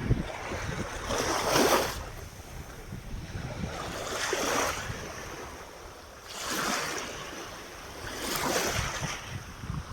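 Ocean waves washing in, four swells of surf about two to three seconds apart, with wind buffeting the microphone.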